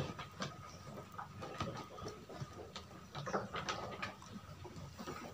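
Scattered light taps and shuffles of weaned lambs' hooves on a slatted wooden pen floor.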